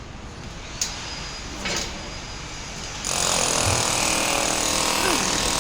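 A steady hiss with a sharp click and a short thump, then a loud, steady machine noise full of steady tones that starts abruptly about three seconds in.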